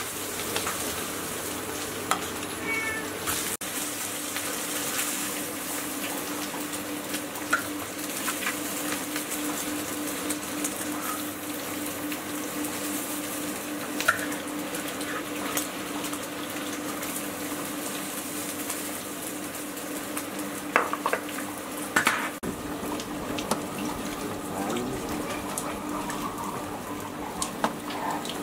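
Food sizzling in a large wok while a metal spatula stirs and scrapes, with scattered clinks and a steady hum underneath. In the last few seconds, water sloshes as handfuls of wild greens are washed in a steel bowl.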